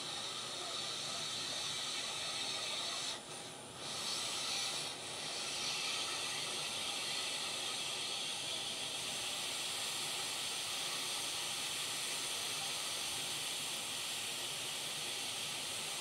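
Hot air rework station blowing a steady hiss of hot air onto the board, melting the solder under a replacement USB-C controller chip. The airflow dips briefly about three seconds in and again near five seconds.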